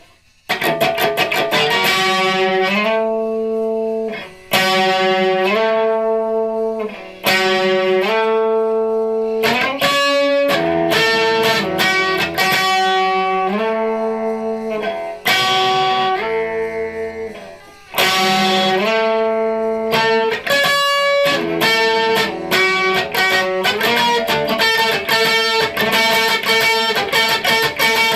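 Electric guitar playing a rhythm part of fast picked chords, starting about half a second in, with the chords changing every second or two and a few brief drops in level between phrases.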